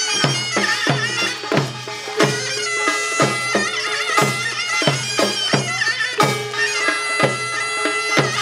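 Korean folk drum-band music for an ox mask dance. Barrel drums and a large standing drum beat a steady pattern, mostly pairs of strokes about once a second, under a shrill reed wind melody with a wavering pitch.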